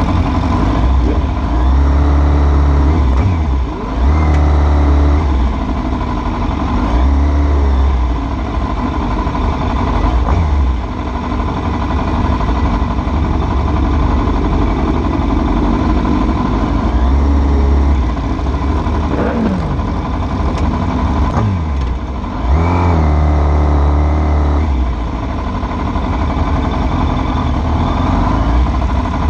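Several sport motorcycles running and revving in slow traffic, the engine note rising and falling several times over a heavy low rumble from the bike carrying the camera.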